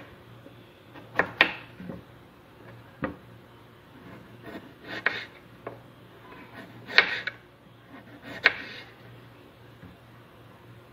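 A kitchen knife shaving the thick skin off pieces of bottle gourd on a wooden cutting board: about five short, sharp scraping strokes a second or two apart.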